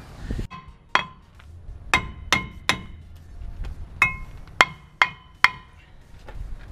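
A hand tool striking the truck's steel brake rotor and hub about eight times at irregular spacing. Each hit is a sharp metallic knock that rings briefly at the same pitch.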